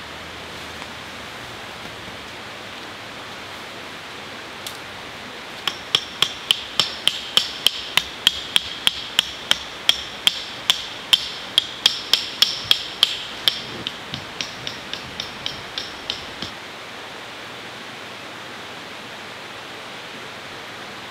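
Hammer driving a tent stake into the ground: a run of about two dozen quick ringing strikes, roughly three a second, with the last few lighter before they stop.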